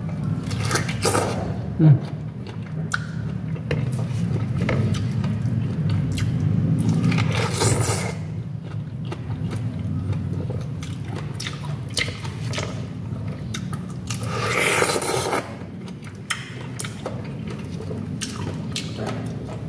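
Close-up biting into and chewing juicy fresh pineapple, wet mouth sounds coming in uneven bursts, the loudest about 7 seconds in and again about 15 seconds in. A steady low hum runs underneath.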